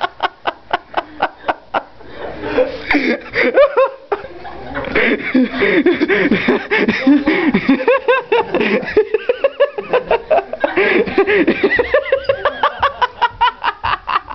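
People laughing hard. Several voices rise and fall, with stretches of rapid, rhythmic ha-ha pulses in the first couple of seconds, about halfway through and again near the end.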